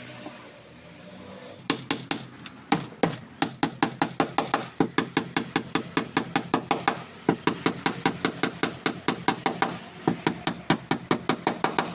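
Hammer driving nails into plywood boat planking: quick, even strikes at about four or five a second, starting about two seconds in, with a brief pause about seven seconds in.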